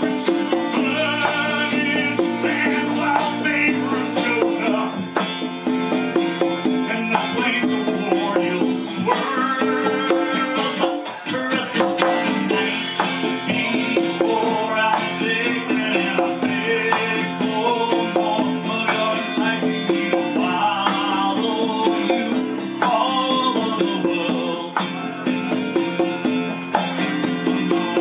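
Conga drums played by hand, keeping a steady rhythm along with an acoustic-guitar song that plays back from a recorded video.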